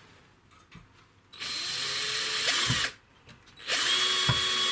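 Cordless drill-driver spinning in two runs: a short run of about a second and a half starting about a second and a half in, then a steady run starting near the end. It is driving small wood screws into pre-drilled, countersunk holes in a pine slat frame.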